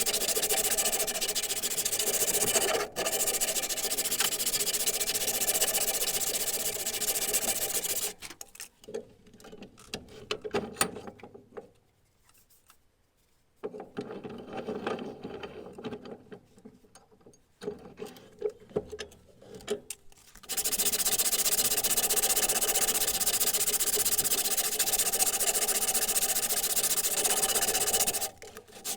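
Steady abrasive sanding of the steel hammer head, in two long stretches with a pause in the middle filled by scattered small knocks and scrapes.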